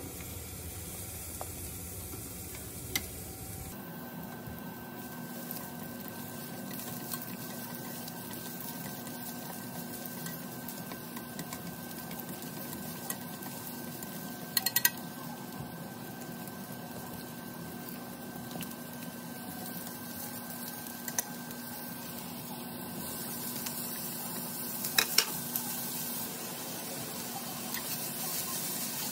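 Sliced garlic, and later zucchini and bacon, sizzling in oil in a frying pan while being stirred with wooden chopsticks. A few sharp taps of the chopsticks on the pan come through, a quick cluster about 15 s in and a pair about 25 s in, and the sizzling grows louder near the end.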